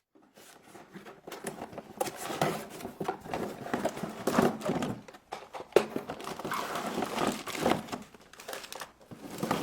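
Plastic toy packaging being handled and opened, crinkling and rustling in irregular bursts with small clicks and knocks of plastic parts.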